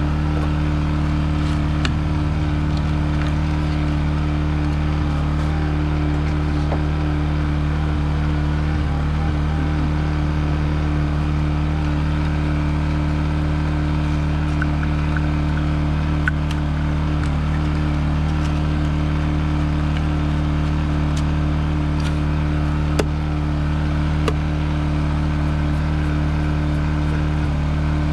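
Electric motor of a 1x30 belt sharpener running steadily at one speed, with a few faint ticks.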